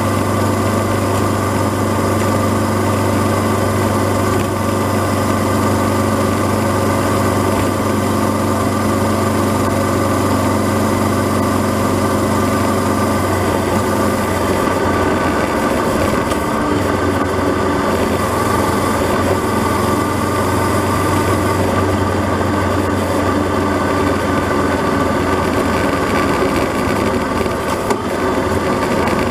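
Honda CB500X's parallel-twin engine running as the motorcycle cruises along a road, over a steady rush of wind and road noise. Its steady note changes about halfway through.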